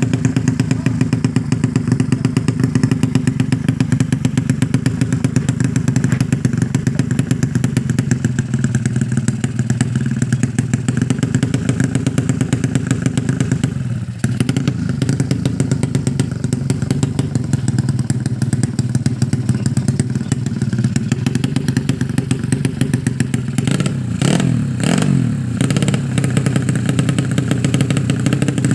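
Motorcycle engine running steadily at a constant speed with an even, rapid firing beat. It dips briefly about halfway through and wavers in pitch for a moment near the end.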